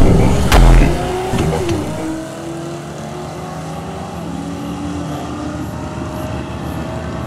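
Two drag-racing vehicles, a small pickup and a car, launching hard from the start line and accelerating away down the strip. The engines are loudest in the first second, with a sharp burst about half a second in, then fade with distance, their pitch climbing and dropping back at each upshift.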